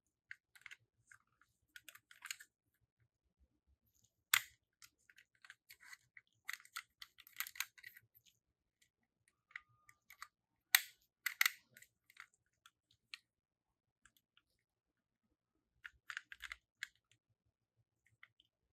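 Toy minicars clicking and clattering in short scattered bursts as they are handled and rolled, with a sharp knock about four seconds in and the loudest near eleven seconds.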